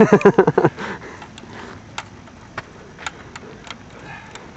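A voice in the first moment, then a series of about seven sharp, irregular clicks over faint background noise.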